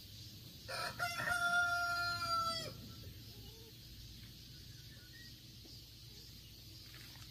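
A rooster crowing once: a single long call, held about two seconds, starting just under a second in.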